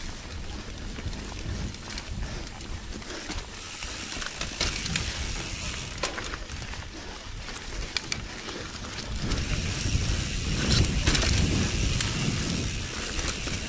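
Mountain bike riding down a dirt singletrack: a steady rattle and clicking of the drivetrain and the rear hub's ratchet, over the noise of tyres rolling on dirt and leaves. It gets louder from about nine seconds in.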